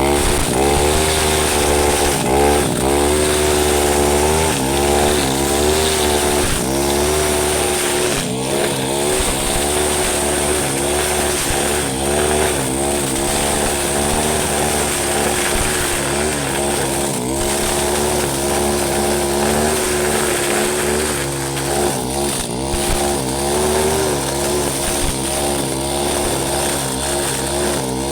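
Husqvarna 532RBS backpack brush cutter's two-stroke engine running at low throttle, its pitch wavering up and down as the throttle is eased rather than opened up.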